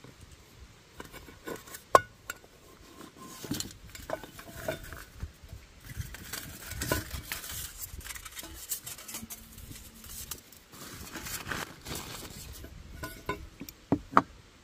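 Camping cook kit being unpacked by hand: metal clinks and knocks as a gas canister and a small canister stove come out of a titanium pot, with a cloth bandana rustling. The loudest knock comes about two seconds in, with two more sharp clinks near the end.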